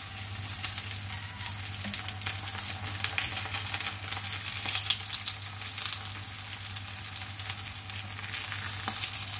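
Chicken cooking on the stove, sizzling with a steady crackle. A low hum runs underneath.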